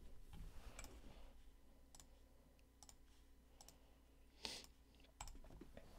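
Faint, scattered clicks of a computer keyboard and mouse, about half a dozen, with a louder click about four and a half seconds in.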